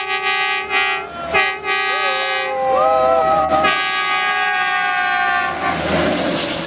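A rally truck's air horn blowing three long blasts, the last held about two seconds, with people calling out between blasts.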